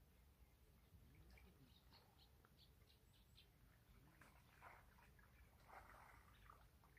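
Near silence with faint bird chirps: a run of short, high chirps in the first half, then softer twittering.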